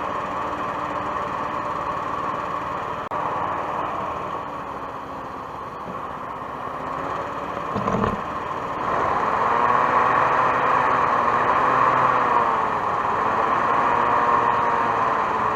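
Hovercraft engine and lift/thrust fan running, steadier and quieter at first, then louder from about nine seconds in as the pitch rises and wavers with the throttle. A short low thump about eight seconds in.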